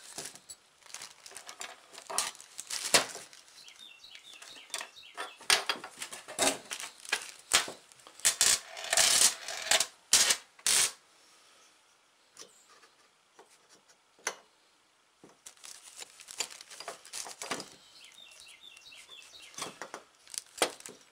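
Clear plastic sheeting crinkling and small metal engine parts clicking and clinking as a two-stroke crankshaft and crankcase halves are handled on a workbench. The crinkling is loudest a little past the middle, then drops away for a few seconds before softer rustling resumes.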